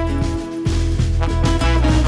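Background music, a jazzy swing tune that gets louder and fuller about half a second in.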